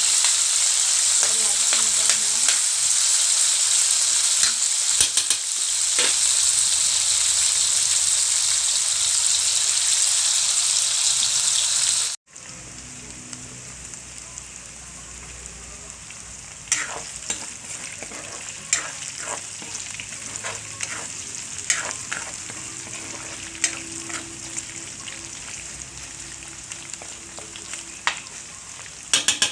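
Food sizzling as it is stir-fried in a hot pan: a loud, steady sizzle, then after an abrupt cut about twelve seconds in a quieter sizzle with scattered sharp clicks and taps of a utensil stirring against the pan.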